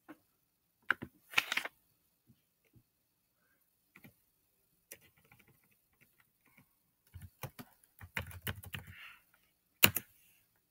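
Keys on a Chromebook keyboard clicking as a search is typed, backspaced and retyped: scattered key presses with pauses, faster strokes later on, and one sharp keystroke near the end as the search is entered.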